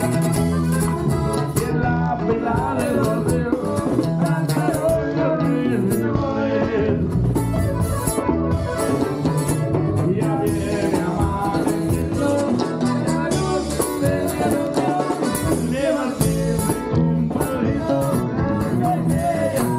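A band playing Latin music, with guitar, a steady beat and some singing.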